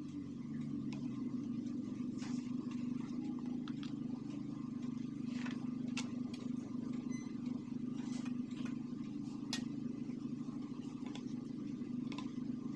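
A steady low hum throughout, with scattered light clicks and scrapes as a soft pandan crepe is folded and rolled around its filling on a plate and the roll is set down on a plastic tray.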